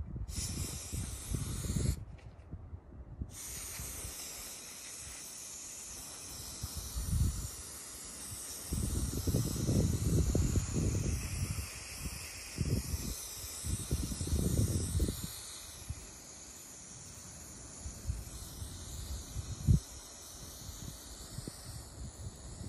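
Aerosol spray-paint can hissing steadily as paint is sprayed onto a garden stake, stopping for about a second near the start and then resuming. Bursts of low rumble come and go through the middle.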